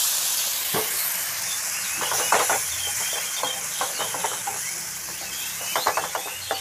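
Water just poured into a hot frying pan of fried onions, capsicum and spices sizzling and hissing as it boils off into steam, the hiss slowly dying down. A wooden spatula scrapes and taps against the pan a few times as it stirs.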